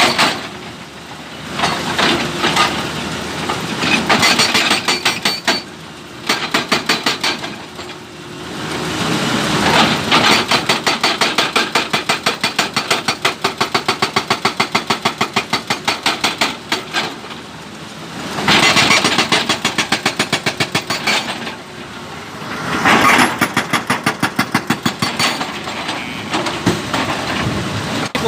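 An excavator-mounted hydraulic breaker is hammering a stone boulder in bursts of rapid, even blows, about six a second, each burst lasting a few seconds with short pauses between. The excavator's engine runs underneath throughout.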